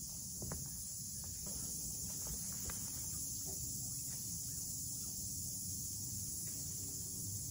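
Steady high-pitched chorus of forest insects, with a low rumble underneath and a few light knocks of footsteps on a wooden walkway in the first few seconds.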